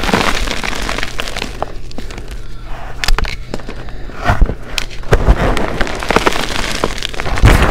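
Glitter-flecked gym chalk being crushed and crumbled under rubber-gloved hands: dense crunching and crackling. It thins to a few sharp cracks a couple of seconds in, then turns dense again from about five seconds on.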